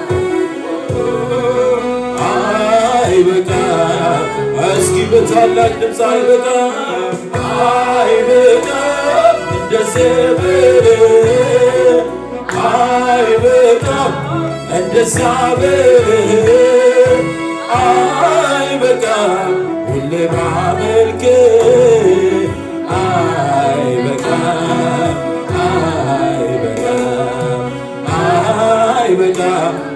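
A man sings an Amharic gospel worship song into a microphone over steady instrumental backing with a bass line.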